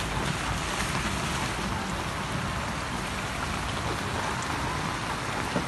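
Heavy rain falling and muddy floodwater rushing down a street: a steady, unbroken hiss.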